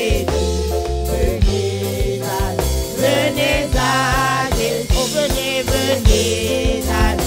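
Women's worship group singing a French hymn refrain into microphones over instrumental accompaniment with a steady bass line.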